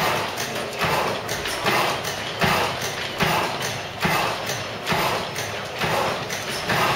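Stationary gas engine running at a slow, steady speed: a regular knock with a hissing clatter about every 0.8 s.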